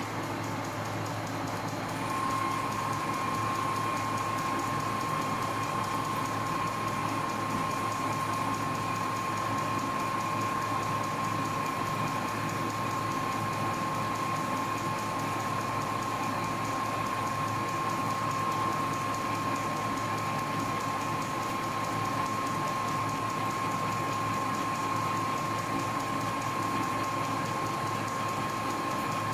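Ward 3A capstan lathe running as its turret-held twist drill bores a deep hole for a bush under flowing coolant. A steady high whine sets in about two seconds in, as the loudness rises, and holds.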